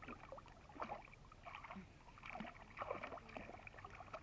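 Faint, irregular splashing and sloshing of shallow water being stirred by hand.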